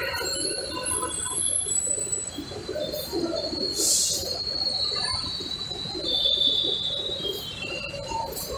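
Metro station concourse ambience: a steady mix of background noise with faint thin high tones and a brief hiss about four seconds in.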